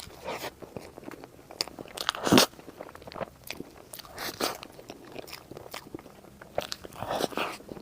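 Close-miked eating: a run of crunchy bites and chewing, with one loud crunch about two and a half seconds in.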